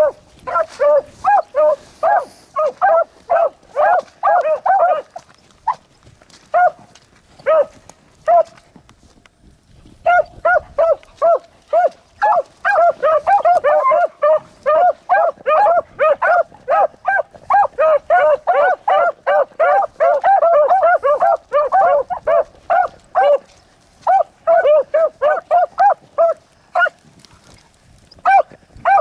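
Beagles baying in rapid, overlapping barks while running a rabbit on its scent trail. The cry thins to scattered barks about five seconds in, breaks off for a second or two near nine seconds, then picks up again thick and steady.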